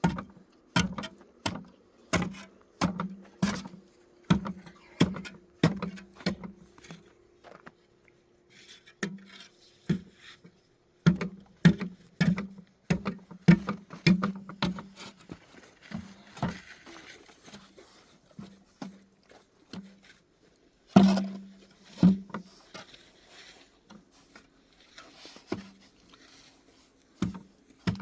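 Repeated sharp knocks, each with a short low ring, coming about one or two a second in runs with brief pauses, then more scattered, with one louder strike about three quarters of the way through.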